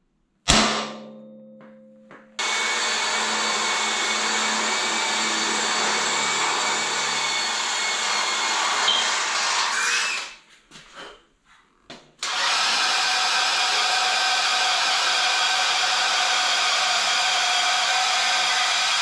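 A hammer strikes a center punch once with a short ring. An electric drill then runs steadily, boring bolt holes through the steel truck frame rail where the new crossmember mounts. The drill stops about ten seconds in, with a few small clicks, and starts again about two seconds later.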